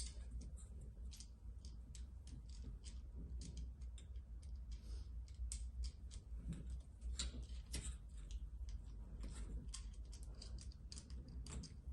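Faint, irregular light clicks and ticks of small metal parts being handled as the cog is screwed back into the elbow of a shearing machine's flexible-drive downtube, over a steady low hum.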